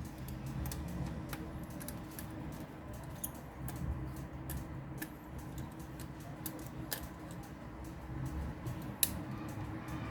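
Small, scattered clicks and taps of hand tools and parts on a Samsung Galaxy S3 smartphone as it is taken apart and its screws are removed, with a sharper click about nine seconds in.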